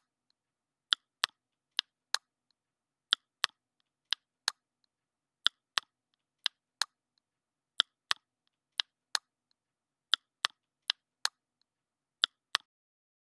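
Sharp, dry clicks in pairs, a pair about every second in an even, repeating rhythm, over dead silence.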